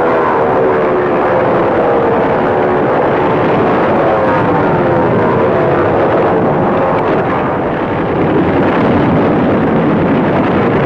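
Propeller aircraft engines running loud, their pitch gliding up and down several times as the planes pass.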